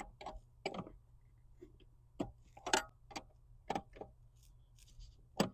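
A wrench clicking and tapping against the clutch pedal rod's lock nut and the surrounding metal as it is fitted on. There are about seven short, irregular clicks.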